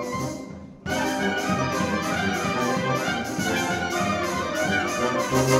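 Wind symphony with massed clarinets and brass playing a fast passage over a steady percussion beat. The music dips briefly about half a second in, then the full ensemble comes back in and builds to a loud final chord near the end.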